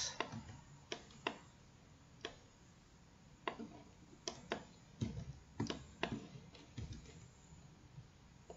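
Faint, irregular single clicks of a computer mouse and keyboard, about a dozen of them a fraction of a second to a second apart, over low room hiss.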